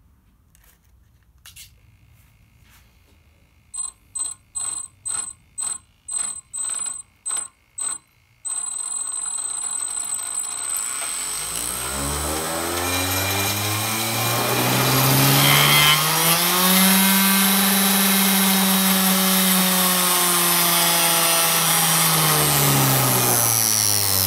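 Homemade axial-flow jet engine spun dry by a brushless RC car motor: about eight short electronic beeps, then a whine that rises in pitch as the rotor spools up, holds at top speed, and begins to fall near the end. The motor vibrates because the shaft adapter coupling it to the engine is slightly out of true.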